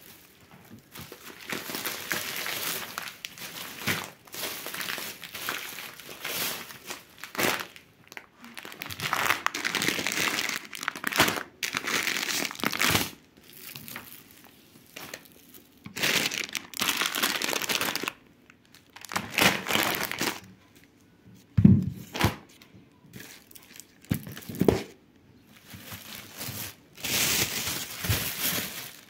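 Thin plastic carrier bags crinkling and rustling in irregular bursts as groceries are handled and pulled out of them, with a couple of soft knocks about three-quarters of the way through.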